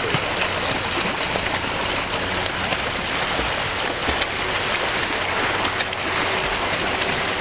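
Water splashing and churning as a group of swimmers swims front crawl close by, arms and kicks breaking the surface in a steady wash of splashes.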